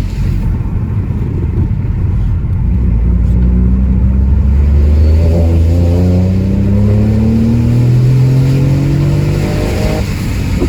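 Remapped Ford Focus 1.0 EcoBoost three-cylinder turbo engine pulling under hard acceleration, its pitch climbing steadily for about nine seconds. Near the end the revs drop suddenly.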